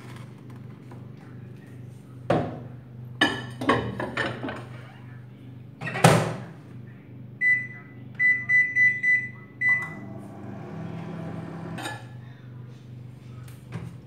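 Microwave oven being loaded and started: clunks of a glass dish and the door, loudest about six seconds in, then high keypad beeps, one and then a quick run of four. About ten seconds in the oven starts running with a steady whir.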